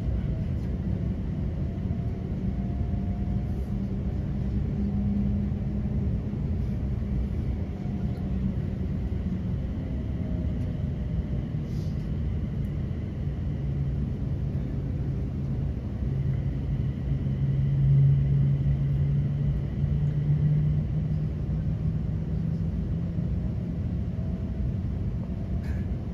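Saloon noise inside a Class 350 Desiro electric multiple unit: a steady low rumble with an electrical hum that drops in pitch partway through and swells briefly about two-thirds of the way in, plus a faint high whine.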